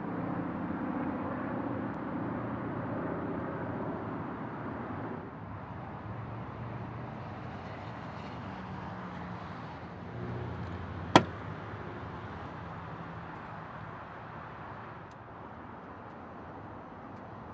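Ferrari 360 Modena's 3.6-litre V8 idling steadily through its stock exhaust. One sharp click about eleven seconds in.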